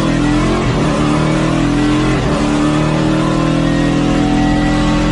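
Car engine sound effect: the engine pulls under acceleration, its pitch climbing slowly, with two brief breaks in the note, one near the start and one about two seconds in, like gear changes.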